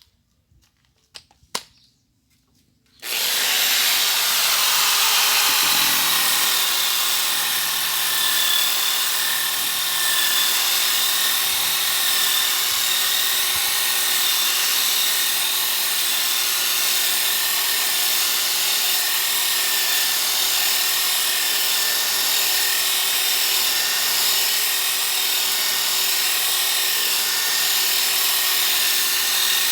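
Electric drill in a grinder-style adapter, spinning a 150-grit 125 mm sanding disc against pallet wood. A few light clicks come first; about three seconds in the drill starts and runs steadily, a high whine over the rasp of the disc on the wood.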